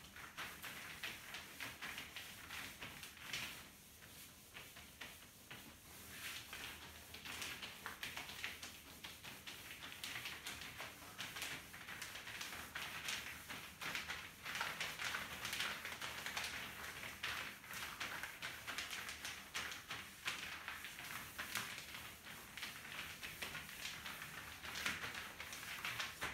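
A cloth rubbing back and forth over a whiteboard, wiping off marker writing: a continuous hissing scrub made of quick strokes, with a few brief pauses.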